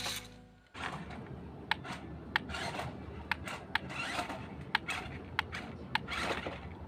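Handling noises: rubbing and scraping, with about ten sharp clicks scattered throughout.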